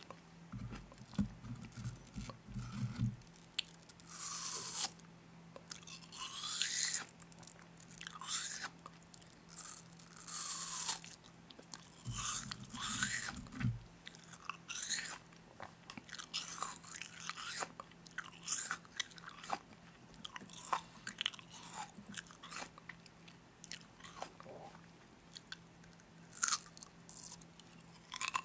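Close-up crunching and chewing of crisp snack food, with irregular sharp crackles. There are two brief low rumbles, one near the start and one about halfway through.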